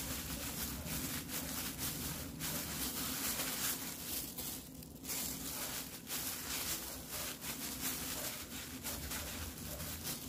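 Crinkling and rustling of loose disposable plastic gloves as hands squeeze and roll a kimbap on a wooden cutting board, in soft, uneven bursts.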